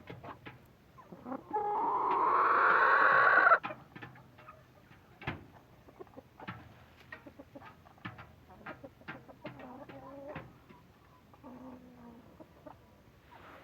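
A rooster among Kenbro Kienyeji chickens crows once, loud and about two seconds long, starting about a second and a half in. Hens cluck in short scattered calls through the rest, with many small clicks and taps.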